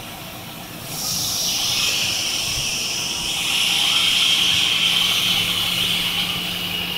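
A steady hiss that comes in about a second in and holds, joined by a low steady hum in the second half.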